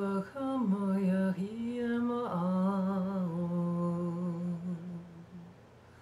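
A woman's voice singing a slow, wordless chant in long held notes that step downward. It ends on one long low note that fades out about five and a half seconds in.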